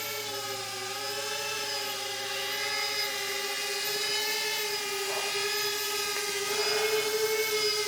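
Eight-inch quadcopter drone's iFlight Xing 3110 motors and Gemfan 8-inch props producing a steady, slightly wavering multi-tone buzz as it comes in to land, growing a little louder toward the end.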